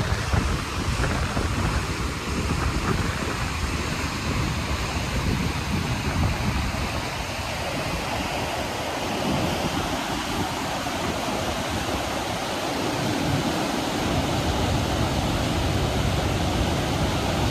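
White-water rapids and falls of the Potomac River rushing in a steady, loud wash of noise. Wind buffets the microphone in gusts during the first half.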